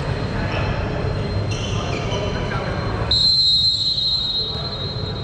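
A whistle blown in one long high-pitched blast starting about three seconds in, over the steady noise of a sports hall.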